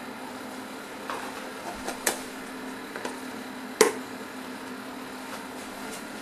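EveryCook automated cooking machine heating its closed pot of water just below the boil: a steady low hum with a few sharp ticks about once a second, the loudest nearly four seconds in.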